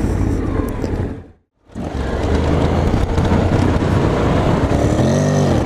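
Honda X-ADV's 745 cc parallel-twin engine running under way, mixed with wind and tyre noise. The sound cuts out completely for a moment about a second and a half in. Near the end the engine's pitch rises and falls once.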